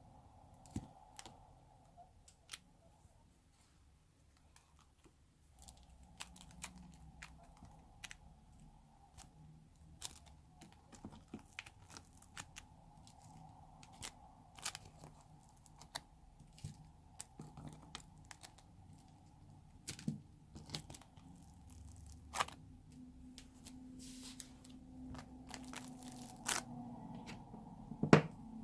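Sticky slime mixed with foam bricks and play-dough, stretched and pressed by hand: irregular sticky pops, crackles and tearing clicks, with a louder pop near the end.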